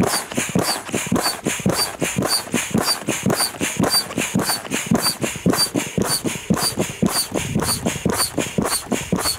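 A manual air pump inflates a high-pressure inflatable boat floor (air deck) through a hose, with quick, regular pumping strokes, about three a second.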